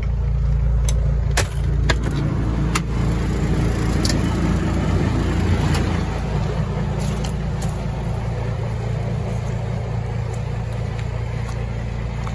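Freightliner FLD120's diesel engine idling steadily to keep the air system aired up, with no air-leak hiss standing out. A few sharp clicks come in the first three seconds.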